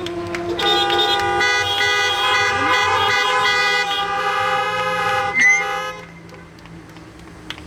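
Several car horns honking at once in long, overlapping blasts, stopping about six seconds in: a drive-in congregation honking in place of applause after a worship song.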